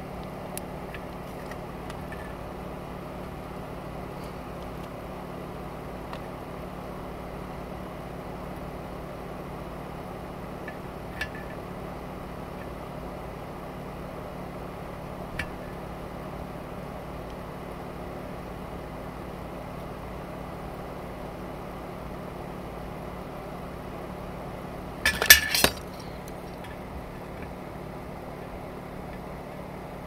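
Small metallic clinks and taps of tweezers and a soldering iron tip against a circuit board and metal work surface: a couple of faint ticks, then a brief cluster of sharp clinks, the loudest sound, about 25 seconds in. A steady low hum runs underneath.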